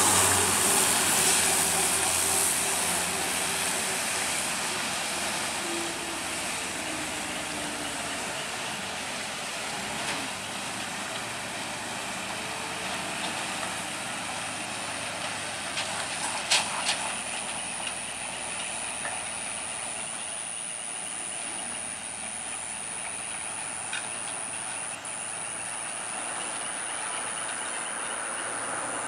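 Engines of trucks and motorbikes climbing a steep wet dirt road. The nearest engine is loudest at the start and fades over the first several seconds, over a steady hiss. A thin, steady high-pitched tone joins about halfway through.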